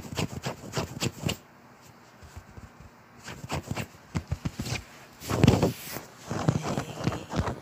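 A small dog scrabbling and bouncing about on a bed: a run of soft knocks and rustling from paws on the bedding. About five and a half seconds in comes a loud rubbing rush as the dog's fur presses against the microphone, followed by more rustling.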